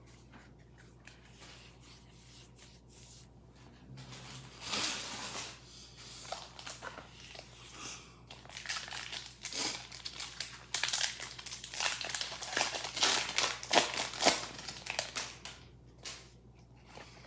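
Foil wrapper of a Pokémon trading card booster pack crinkling and tearing as it is opened by hand. Soft handling early on, then steady crinkling through the second half, loudest near the end before it settles.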